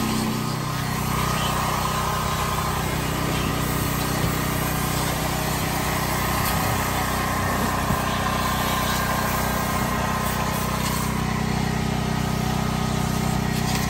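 Vacuum cleaner running steadily while its hose nozzle works over the car's carpet and seats. Its hum shifts slightly in pitch about half a second in.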